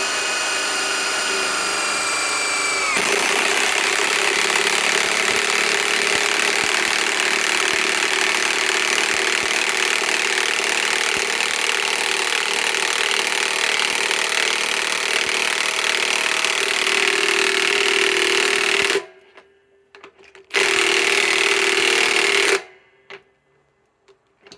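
A cordless drill whines for a few seconds. Then a high-torque impact wrench hammers a large lag screw into wood for about sixteen seconds, stops, and gives two short bursts near the end as the lag seats.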